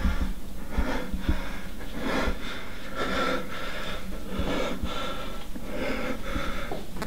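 A frightened man breathing fast and heavily, in and out in quick repeated gasps, with a few soft low thumps.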